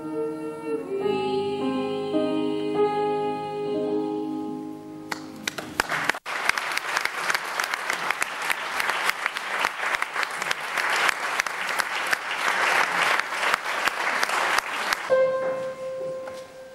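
Two young female voices holding the last sustained notes of a duet with piano, ending about four and a half seconds in. Audience applause follows for about ten seconds. Near the end a single steady note is held.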